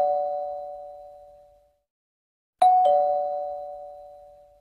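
Two-note ding-dong chime like a doorbell, a higher note followed at once by a lower one, each fading away over about a second and a half. The first chime is already dying away at the start and it sounds again about two and a half seconds in.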